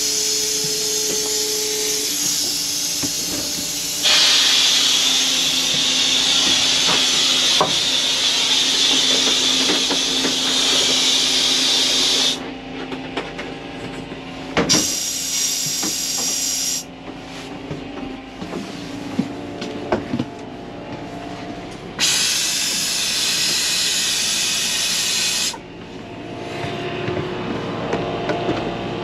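Compressed air hissing out of an open RV bathroom faucet as the water lines are blown out. It comes in three bursts: a long one that grows louder about four seconds in and stops a little before halfway, a short one a couple of seconds later, and another of about three seconds near the end.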